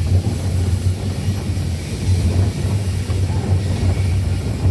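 Steam tank locomotive on the move, heard from on board: a steady low rumble with uneven pulsing.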